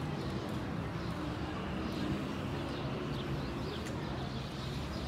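Outdoor garden ambience: small birds chirping now and then over a steady low background noise.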